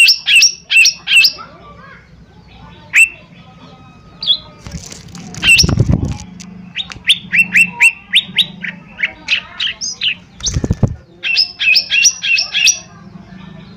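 Lesser green leafbird (cucak ijo mini) calling in quick bursts of short, sharp notes that sweep downward, repeated several at a time. Two dull low thumps break in, about six seconds and eleven seconds in.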